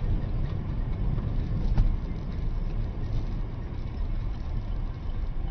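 Steady low road and engine rumble of a moving car, as picked up by a dashcam, with one short knock a little under two seconds in.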